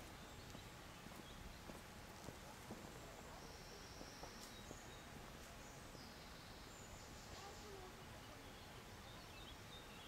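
Quiet outdoor ambience: a faint steady hiss with a few faint, short, high bird calls.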